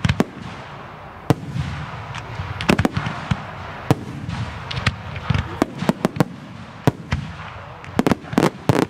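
Aerial fireworks bursting in the sky: many sharp bangs at irregular intervals over a continuous crackling hiss, with a quick run of bangs near the end.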